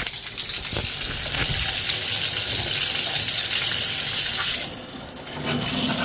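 Water running through a newly fitted KAIREY LED handheld shower head, a steady hiss of spray, turned on to test the hose connection for leaks. The hiss drops away for about half a second near the end, then returns more quietly.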